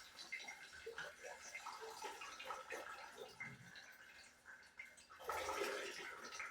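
Water dripping and trickling from an open pipe, with a short, louder gurgling rush about five seconds in.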